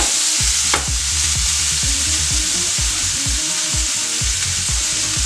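Pork strips, sliced peppers and stir-fry spices frying in hot oil in a frying pan, with a steady sizzle.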